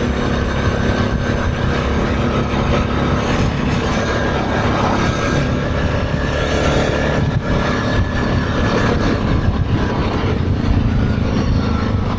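ATV engine running steadily while riding at a constant pace, with a continuous rushing noise under it.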